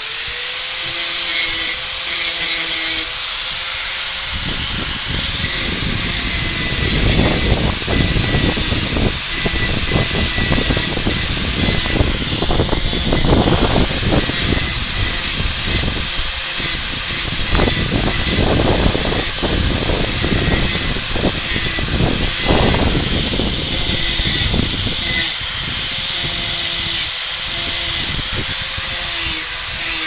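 Angle grinder running at full speed with a steady motor whine; from about four seconds in its abrasive wheel bites into a steel bar, harsh grinding noise rising and falling with each pass.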